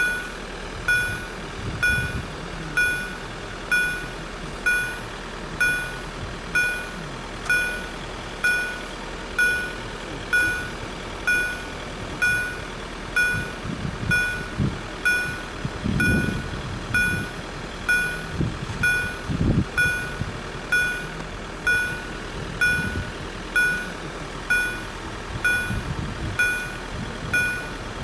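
Railway level-crossing warning signal beeping about once a second, each short tone fading quickly: the crossing is closed for an approaching train. Low rumbles swell and fade in the middle.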